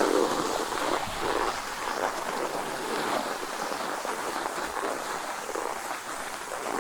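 Skis sliding and scraping over packed snow while being towed uphill on a T-bar lift, a continuous rushing hiss with a few stronger scrapes in the first second or so.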